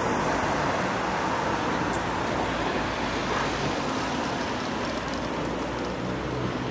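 City street ambience: steady road traffic noise of passing cars, with a low engine hum underneath.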